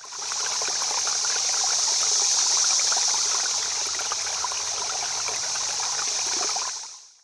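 Running water trickling steadily, a fine hiss sprinkled with tiny splashes, fading in at the start and fading out near the end.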